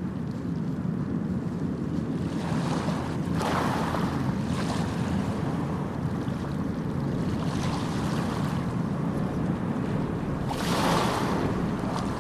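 Sea waves washing in over a steady low rumble, with two waves breaking more loudly, one a few seconds in and one near the end.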